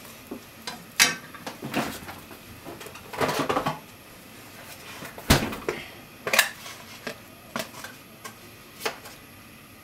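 Scattered knocks and clinks of kitchenware being handled, with a short rattle about three seconds in and the sharpest knock a little after five seconds.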